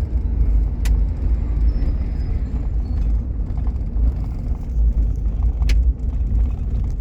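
Low rumble of tyres and engine inside a moving vehicle's cabin on a rough road, with two sharp knocks, about a second in and just before six seconds.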